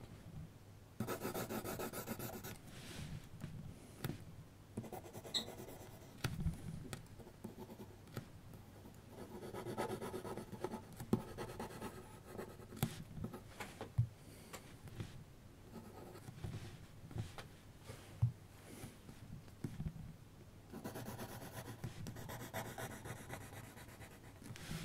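A 2B mechanical graphite pencil scratching on paper in fast back-and-forth hatching strokes. The scratching comes in bursts with pauses, and a few sharp ticks are scattered through it.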